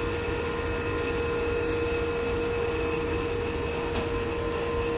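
Stationary HXN5 (GE ES59ACi) diesel locomotive giving off a steady mechanical hum, with a low rumble and several steady high whining tones.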